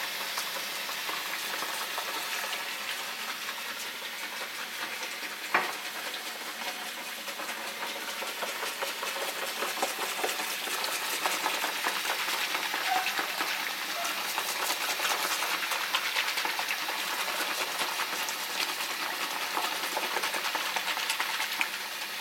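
Kitchen faucet running steadily into a sink of sudsy water, with a hand swishing through the water and foam. One sharp knock about five and a half seconds in.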